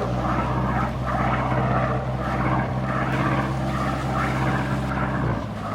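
A tour boat's engine running steadily, a low, even drone with a hiss over it. The drone dips briefly near the end.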